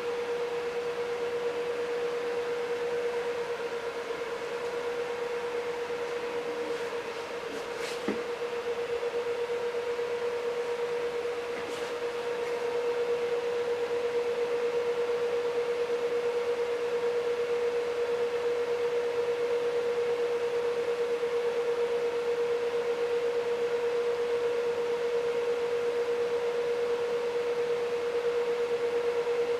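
A steady mid-pitched hum over an even hiss, growing slightly louder about halfway through, with a single click about eight seconds in.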